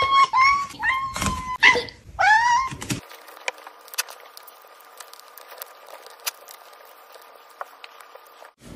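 Cat meowing insistently: about five short, high, upward-curving meows in quick succession. After about three seconds the meowing stops and there are faint clicks and smacks as the cat eats wet food from a plate and licks it.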